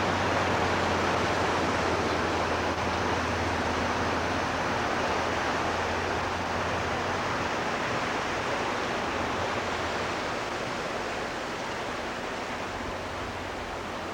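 Steady rush of water at the foot of a hydroelectric dam. A low steady hum lies under it for about the first half, and the noise grows a little quieter toward the end.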